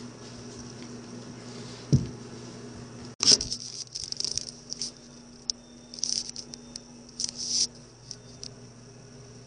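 Handling noise from the recording device: a single knock, then a run of scratchy rustling and rubbing as it is picked up and moved around in the hand, over a faint steady hum.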